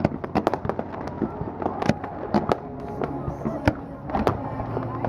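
Aerial fireworks display going off: a rapid string of sharp cracks and bangs, thickest in the first second, then single bursts every half second or so.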